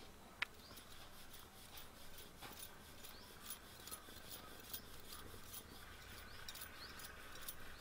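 Wooden rolling pin rolling out a roti on a round stone board: faint rubbing with many light ticks, and one sharp click about half a second in.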